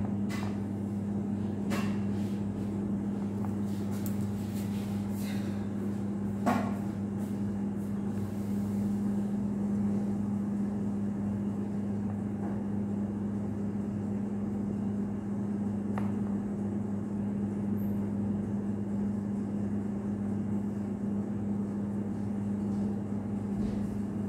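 Steady electrical hum from running kitchen machinery: an even low drone with no change in pitch. A few faint light clicks and taps sound over it, the loudest about six and a half seconds in.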